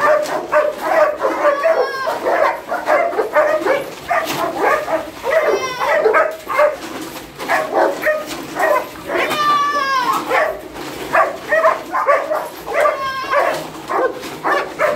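Several kennel dogs barking rapidly and over one another, mixed with high whining; one long falling whine comes about two-thirds of the way through.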